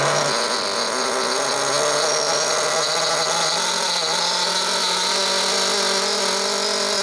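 Brand-new Alpha Plus nitro RC engine running just after being started on the starter box, during its break-in. Its pitch rises over the first two seconds and then holds steady as it warms up.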